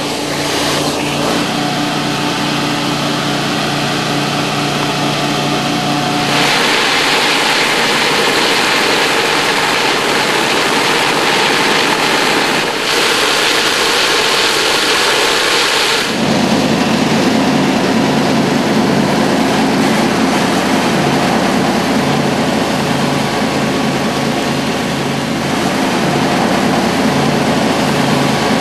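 Vacuum excavation unit running steadily as it jets and sucks out a drain lateral, with an engine hum under the rush of air and water. About six seconds in, the hum drops away under a louder rushing hiss, and the engine hum comes back about ten seconds later.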